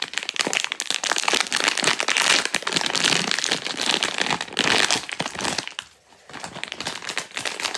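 Blind-box packaging crinkling and rustling as it is handled, with a brief lull about six seconds in.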